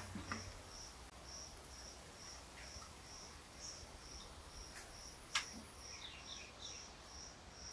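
Faint insect chirping, a short high note repeating about twice a second, with two light taps about five seconds in.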